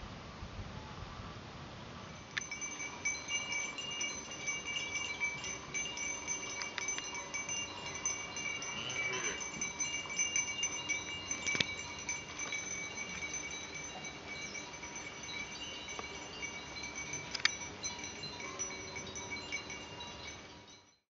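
Chimes ringing: many bell-like tones held and overlapping, with a few sharp clinks, fading out near the end.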